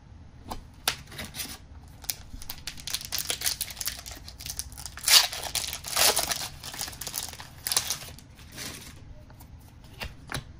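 Foil trading-card booster pack wrapper being torn open and crinkled: a run of short rustling tears, loudest about five to six seconds in, dying away near the end as the cards are handled.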